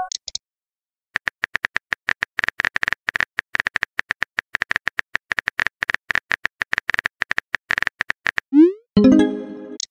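Rapid keyboard typing clicks from a texting app's sound effects, running for about seven seconds while a message is typed. Near the end comes a short rising blip and then a chiming message tone.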